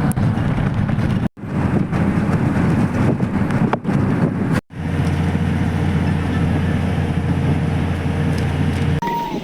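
A motor vehicle driving, giving a steady low engine and road drone. The sound breaks off abruptly twice and changes again near the end, where separate clips are joined.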